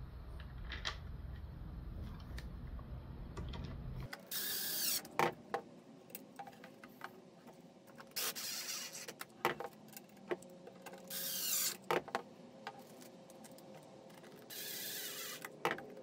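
Cordless RIDGID drill driving screws into plywood: four short runs of about a second each, with handling clicks and knocks between them.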